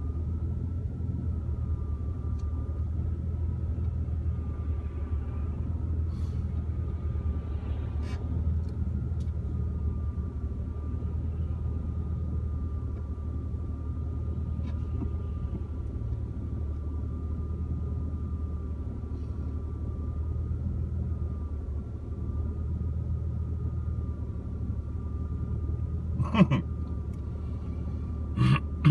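MG ZT190's 2.5-litre V6 idling, a steady low rumble heard inside the cabin, with a faint high whine over it. Two short, louder sounds come near the end.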